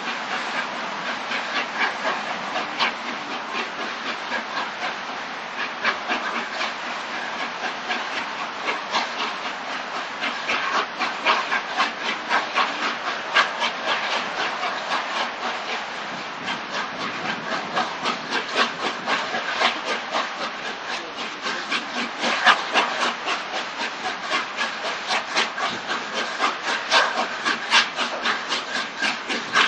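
Three-cylinder LNER Peppercorn A1 steam locomotive 60163 Tornado working hard uphill, its exhaust beating in a quick, steady rhythm with steam hiss, getting louder toward the end as it approaches. The engine was having traction problems on this climb.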